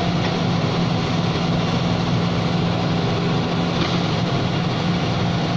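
HGS piling machine's engine running steadily, a constant low hum without any pile strikes.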